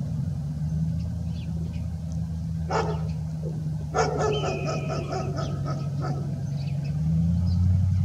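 Steady low engine hum, with a short call about three seconds in and a longer string of rapid pitched calls from about four to six seconds.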